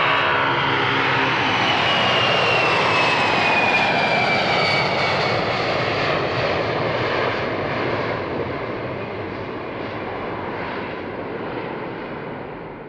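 Boeing 747SP's four turbofan engines at takeoff power as the jet lifts off and climbs away: a steady jet roar with a whine that falls in pitch during the first few seconds, the roar fading over the second half.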